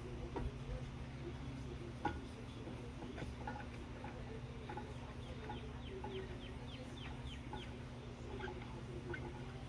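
Birds calling, with a quick run of short, falling chirps from about five to eight seconds in, over a steady low hum. A single sharp knock comes about two seconds in.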